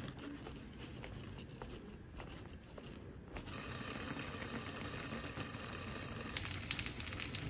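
Low background noise for the first few seconds, then a pot of tteokbokki simmering on the stove: a steady sizzling hiss with popping bubbles that crackle more thickly near the end.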